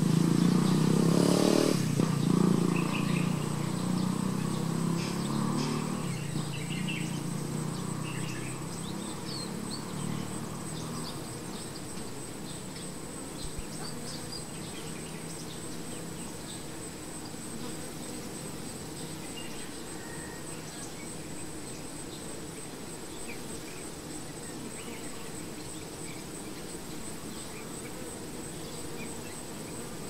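Honey bees humming around a swarm cluster hanging from a branch. The low hum is loud for the first few seconds, then fades to a softer steady drone by about ten seconds in. A thin steady high tone runs throughout, with scattered faint chirps.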